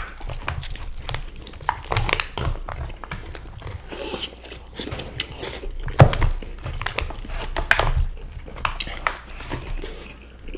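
Close-miked eating sounds: chewing, biting and wet mouth clicks from people eating breaded parmigiana and fries, with a fork picking at aluminium foil trays. Irregular small clicks throughout, with one sharper clack about six seconds in.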